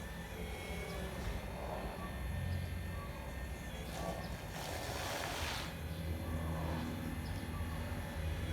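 Hydraulic pump and motors of a radio-controlled CAT hydraulic excavator model running with a steady hum and whine, with a short rush of noise about five seconds in.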